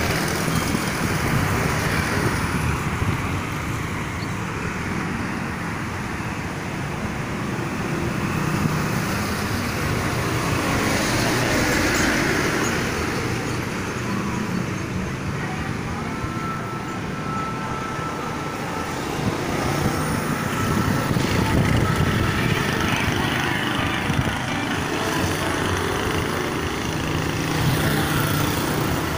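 Road traffic on a wide city avenue: cars, a box truck and motorcycles passing, the noise swelling and easing as each vehicle goes by.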